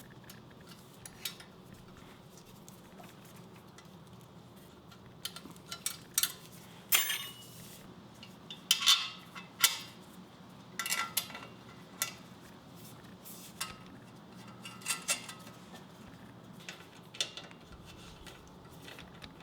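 Irregular metallic clinks and taps as hand tools and metal exhaust hardware (a hanger bolt and its collar) are handled, most of them in the middle of the stretch. A faint low hum runs underneath.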